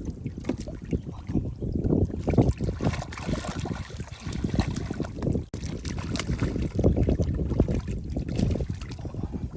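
Shallow water sloshing and splashing in irregular surges, with some wind on the microphone.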